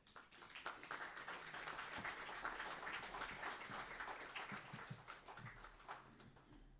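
Audience applauding, swelling within the first second, holding, then tapering off near the end.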